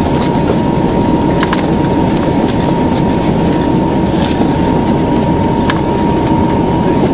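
Cabin noise of a Li-2's two Shvetsov ASh-62IR nine-cylinder radial engines running steadily at taxi power, heard from inside the passenger cabin: a dense, even drone with a thin steady whine above it.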